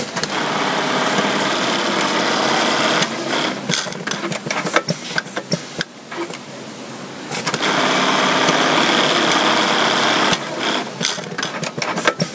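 Dürkopp Adler 580-321 electronic lockstitch buttonhole machine running through two sewing cycles of about three seconds each, a steady fast run near the start and again past the middle. Between and after the cycles there are runs of sharp clicks and knocks.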